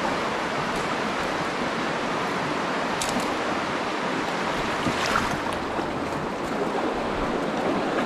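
Creek water rushing steadily, with two brief sharp sounds about three and five seconds in.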